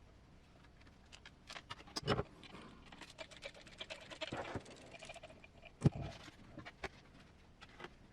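Hands handling and fitting small hard parts: scattered clicks, light scratching and rattles, with a louder knock about two seconds in and a sharper one near six seconds.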